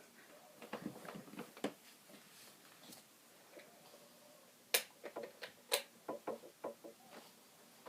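Quiet clicks and taps in two clusters: a handful about a second in, then a quicker run from about five seconds in. The snoring is no longer heard.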